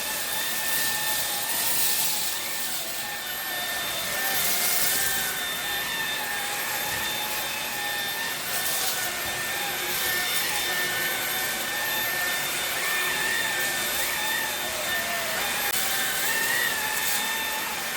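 Dreame V11 cordless stick vacuum running on turbo mode over a thin carpet: a steady high-pitched motor whine over the rush of suction air, with brief swells of hiss as the head is pushed across the pile.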